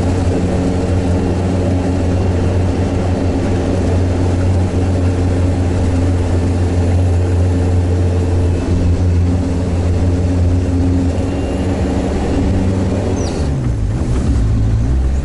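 Sherp amphibious ATV's diesel engine running steadily under load, heard from inside the cab as it crawls through bog mud. Near the end the revs drop and then pick up again.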